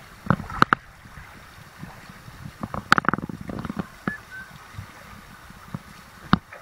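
Steady rush of stream water with a few sharp knocks and clatters: a pair early on, a cluster about halfway, and one near the end.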